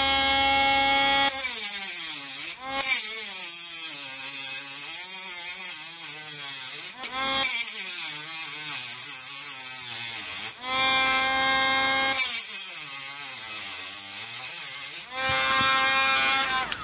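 Dremel rotary tool with a cut-off wheel cutting a slot into a stuck Phillips screw on a carburetor top, so it can be turned out with a flathead. The motor whines steadily when spinning free and turns to a harsh grinding hiss while the wheel bites the metal, in two long cutting stretches broken by brief dips, with plain whine in between and near the end.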